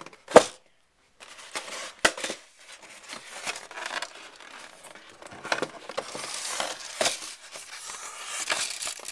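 Handling and rummaging noise close to the microphone: a sharp knock just after the start and another about two seconds in, then continuous rustling and scraping as a cardboard box and its contents are shifted about.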